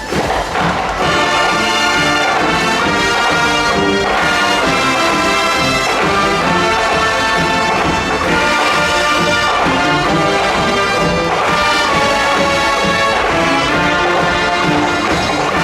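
A large high school brass band playing live in an arena, full brass with trombones and trumpets, swelling up about a second in and then playing at a steady, full level.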